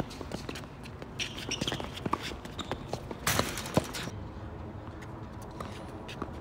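Tennis rally: sharp pops of rackets striking the ball and of the ball bouncing on a hard court, with footsteps, and a brief scraping noise a little over three seconds in.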